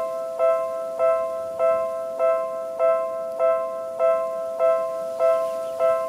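Japanese railway level-crossing alarm with the Seibu Railway-type tone: an electronic bell striking a chiming chord of several notes over and over, about every 0.6 seconds. It warns of an approaching train.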